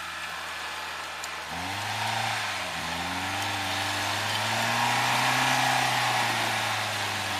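Off-road SUV's engine revving: it rises about one and a half seconds in, dips briefly, then climbs again and is held at its highest for a couple of seconds before easing slightly near the end.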